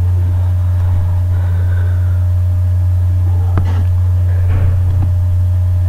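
A loud, steady low hum with faint street traffic sounds over it, including a sharp click about three and a half seconds in.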